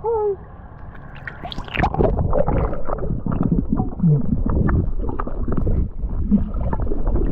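A splash as the camera goes under water, then muffled underwater sound of moving water, with gurgling and many small clicks.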